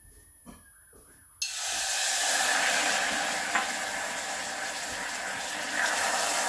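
Water poured in a steady stream into an empty stainless-steel saucepan, starting suddenly about a second and a half in. Near the end lemon juice is poured in as well.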